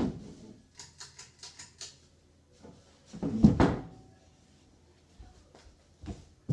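Knocks and thumps of someone stepping down off a chair: a quick run of light ticks in the first two seconds, then one loud thump about three and a half seconds in, and a couple of sharper knocks near the end.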